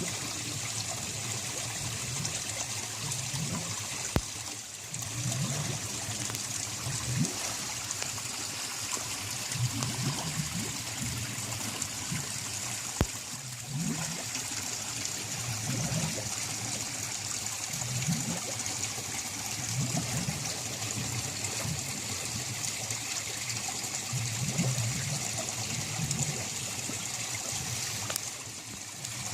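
A narrow stream of valley water pouring steadily and unbroken, a continuous splashing trickle.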